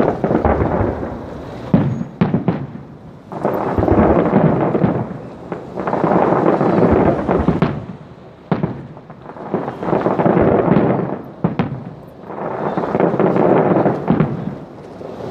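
Aerial fireworks shells bursting in a display: sharp bangs and longer booms, each swelling and fading over about two seconds, one after another.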